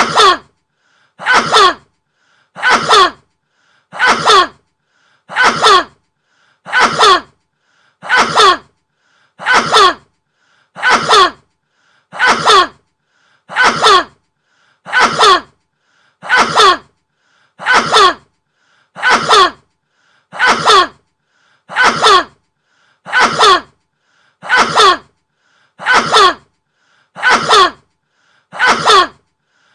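A person sneezing over and over at an even pace, a little under a second and a half apart. The sneezes look identical, like one sneeze repeated, and each has a faint short intake just before it.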